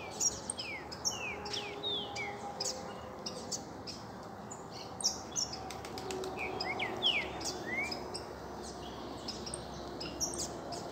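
Several small songbirds, saffron finches and double-collared seedeaters, chirping and calling at once. The calls are short downward-sliding notes and quick high chips, scattered throughout with brief pauses.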